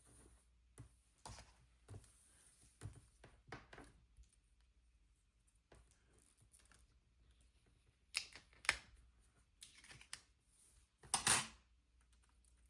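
Light clicks, taps and rustles of paper and stickers being handled on a planner page, with a few sharper clicks and one longer, louder rustle near the end.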